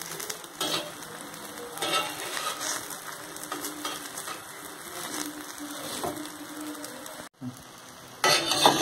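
Egg omelette sizzling in oil on a dosa pan, with a few short scrapes of the spatula against the pan. Near the end, after a brief drop-out, louder scraping and clatter of the spatula on the pan.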